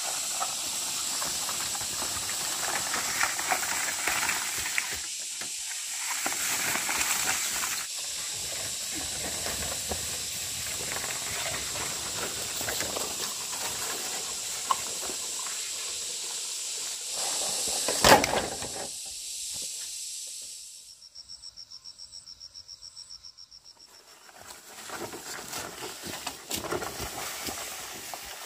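Insects in the forest droning with a steady high hiss that stops about twenty seconds in. A pulsing high buzz follows for a few seconds. A single sharp knock sounds shortly before the drone stops.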